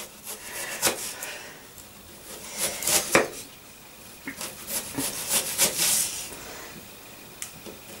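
Kitchen knife slicing an onion thinly on a wooden chopping board: a few separate crisp cuts with the blade scraping onto the wood, with short pauses between strokes.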